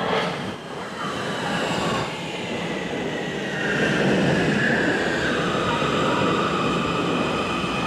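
Munich U-Bahn Class C electric metro train arriving in an underground station, running along the platform and slowing. Its wheels rumble, louder from about four seconds in as the cars pass close by, and its electric traction drive whines in several tones that slowly fall in pitch as it brakes. A brief sharp noise sounds at the very start.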